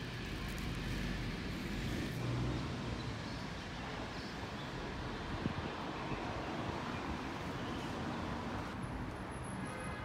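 Steady outdoor street noise of road traffic on a wet road, heavy in low rumble, with a single short click about five and a half seconds in.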